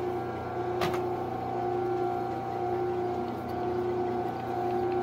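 Metal lathe running with a steady motor hum and gear whine while a drill bit in the tailstock chuck is hand-fed into a steel pin, opening the hole to tap-drill size. A single sharp click comes about a second in.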